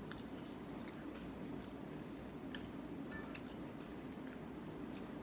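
Faint eating sounds: scattered small clicks and soft wet sounds of food being handled and chewed, over a steady low hum.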